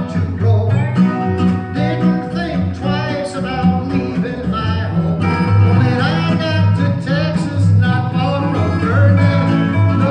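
Live acoustic country band playing a song: a man singing over a strummed acoustic guitar, with a resonator guitar played lap-style and a plucked acoustic bass guitar carrying steady low notes.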